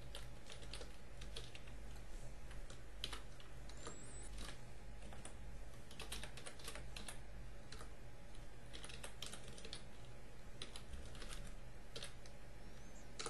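Computer keyboard typing: irregular runs of quick keystrokes broken by short pauses, over a steady low hum.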